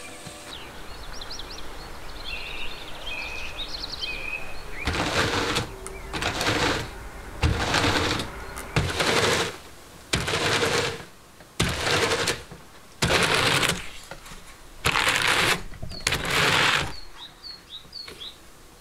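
Birds chirping, then a run of about nine brushing strokes, roughly one a second, as a pair of wooden hand cards with wire teeth are drawn across raw sheep wool to card it.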